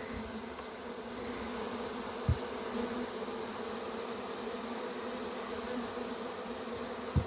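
Honey bee swarm buzzing with a steady, dense hum of many wings. A dull knock comes about two seconds in and another near the end.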